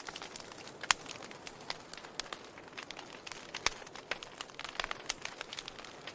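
Wood fire crackling: irregular sharp pops and snaps over a faint hiss, with two louder pops about a second in and again just past halfway.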